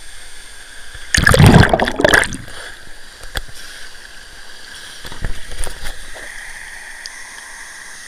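Steady rush of a waterfall pouring into a pool, with loud close splashing and sloshing of water for about a second beginning a second in, and smaller splashes about five seconds in.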